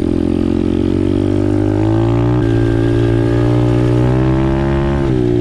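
Apollo RFZ 125cc pit bike's single-cylinder four-stroke engine running under throttle while riding. Its pitch climbs slowly, holds steady, then drops and wavers near the end as the throttle eases.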